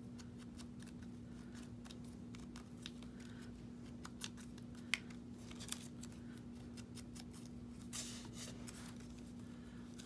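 Paper and small craft tools being handled: light paper rustling and a scatter of small sharp clicks, the sharpest about five seconds in, over a faint steady hum.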